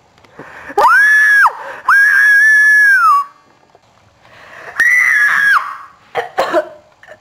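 A girl's shrill, high-pitched screams, three of them, each held steady and the second the longest. A few short breathy gasps follow near the end.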